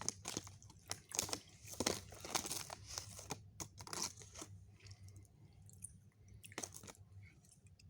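Close-up chewing of cherry pull-apart Twizzlers licorice: wet mouth clicks and smacks, dense for the first four seconds or so, then sparser, with one louder click near the end.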